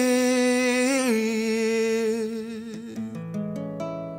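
A man singing one long held note, with a slight waver, that drops a step about a second in and fades out near three seconds. A few plucked guitar notes follow as accompaniment.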